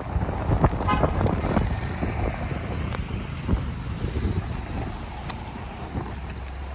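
Street ambience with a steady low rumble of road traffic and a short car horn toot about a second in.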